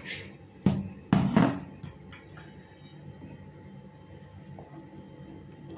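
Kitchen utensils knocking sharply against a cooking pan three times in the first second and a half, then a quieter steady sound of the pan of orange juice simmering on the stove while it is stirred.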